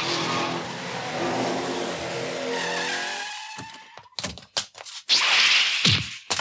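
A car running with its tyres squealing, fading out about three seconds in. Then come a series of short knocks and clunks and a brief loud rush of noise near the end.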